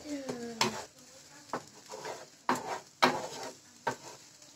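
Spatula scraping and knocking against a non-stick frying pan while scrambled eggs are stirred. The strokes come about once a second, with a light sizzle of the cooking eggs between them.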